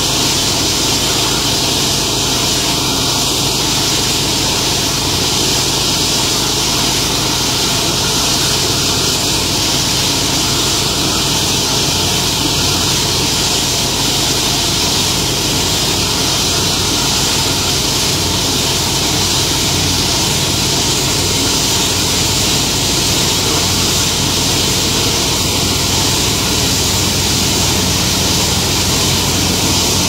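Engine of a self-propelled tracked round-bale wrapper running steadily as the machine turns a bale being wrapped in film: a low, even hum under a constant hiss.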